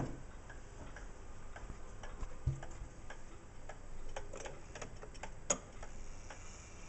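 Kieninger triple-chime wall clock's pendulum movement ticking steadily, with a dull thump about two and a half seconds in and a sharper click about five and a half seconds in.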